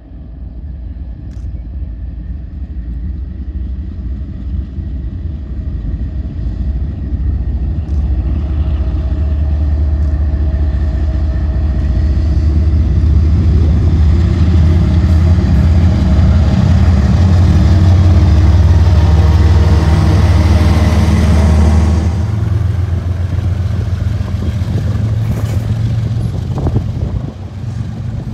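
Diesel locomotives of a freight train approaching and passing close by, the engine drone and rail noise building to their loudest about three-quarters of the way through. The sound then changes suddenly to the steadier, lower engine hum of another passing train.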